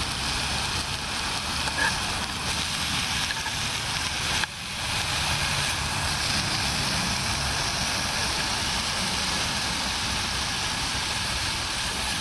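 Bacon sizzling in a frying pan on a portable gas stove, a steady hiss of frying fat. The hiss dips briefly about four and a half seconds in, then carries on.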